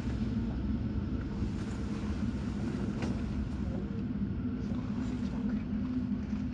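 Hakone Tozan Railway train: a steady low rumble with an even hum underneath.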